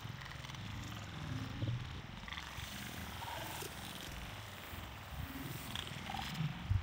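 Pond water lapping and splashing at the bank over a steady low rumble, with a short low thump near the end.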